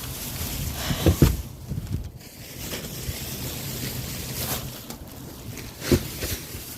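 Wind buffeting the microphone, with a few low thuds of shopping being set down in a car trunk, about a second in and again near the end.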